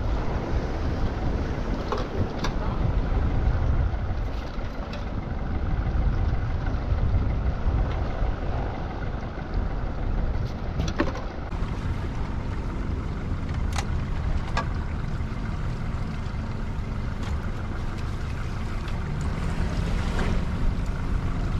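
A small fishing boat's engine runs steadily with a low rumble, and a few sharp clicks sound now and then.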